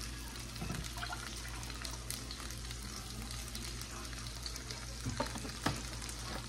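Cooking oil being poured from a plastic gallon jug into a pot, over the steady sizzle of sausages frying in a pan. There are two light knocks near the end.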